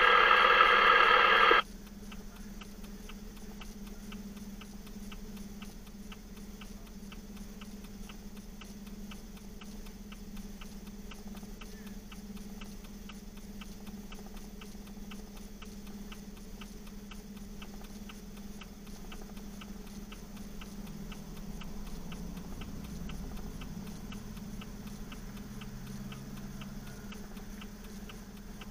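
A two-way radio transmission cuts off about two seconds in. It leaves a vehicle's flasher relay ticking steadily over a low, constant engine hum.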